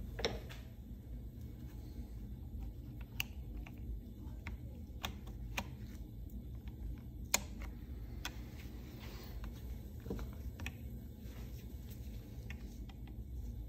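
Sparse small metallic clicks and taps of needle-nose pliers and a wire circlip as the circlip is worked into the wrist-pin groove of a chainsaw piston, at irregular intervals over a faint low hum.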